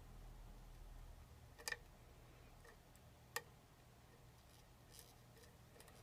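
Faint, sharp clicks of a lock pick and tension wrench working the pins inside a pin-tumbler challenge lock: a quick double click about a second and a half in, a single click a little past the middle, and a fainter one near the end, with near silence between.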